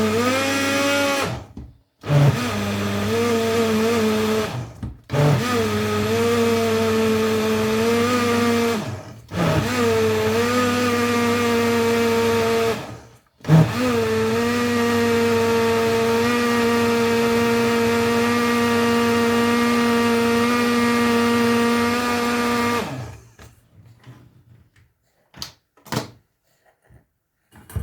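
Electric kitchen blender blending herbs with water, run in five bursts with brief stops between them; the motor's pitch rises as it spins up at each start. The last and longest run cuts off about 23 seconds in and is followed by a few light clicks.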